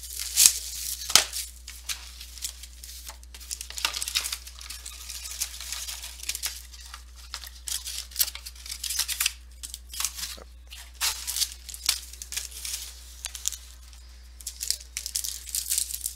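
Trading-card box and card packs being torn open and handled by hand: irregular rips and crinkling wrappers, loudest about a second in and again near the end, over a steady low electrical hum.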